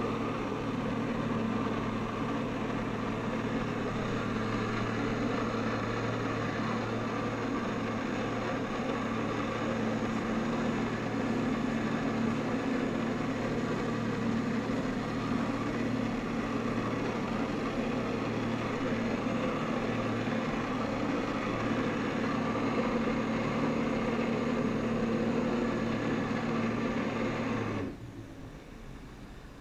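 Personal watercraft engine running steadily at high power, driving the water jet of a Flyboard. Near the end it cuts abruptly to a much quieter idle as the throttle is taken off.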